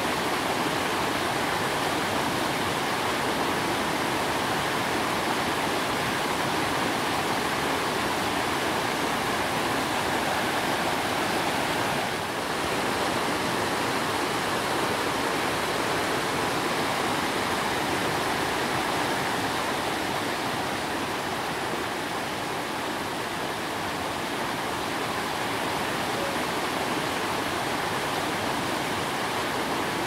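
Kurokuma Falls, an 85-metre waterfall, rushing steadily, with a brief small dip in level about twelve seconds in.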